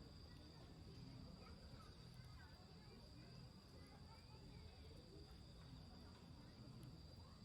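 Very quiet outdoor ambience: a steady high-pitched insect drone, with faint bird chirps here and there.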